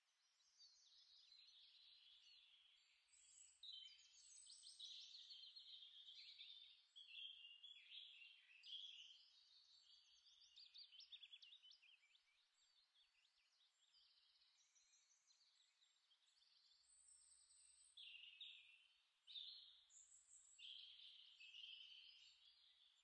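Faint birds chirping and twittering, many quick high calls overlapping, busiest in stretches through the middle and again near the end.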